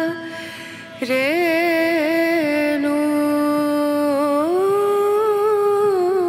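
A single voice chanting in long held notes that waver and step up and down in pitch. The chant drops away briefly just after the start and comes back about a second in.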